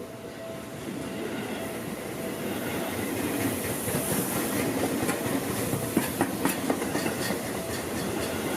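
A Seibu Ikebukuro Line train running through a level crossing, getting louder over the first few seconds, its wheels clacking over the rail joints. The crossing's warning bell keeps ringing in short repeated tones.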